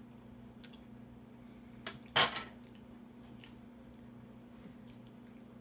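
Metal spoon clinking against a container: two sharp clinks about two seconds in, the second louder and ringing, with a few fainter taps around them, over a low steady hum.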